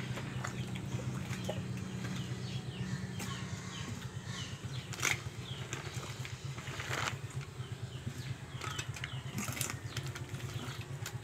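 A steady low hum with a fast flutter, with many short falling bird chirps over it and a few sharp clicks and knocks, the loudest about five and seven seconds in.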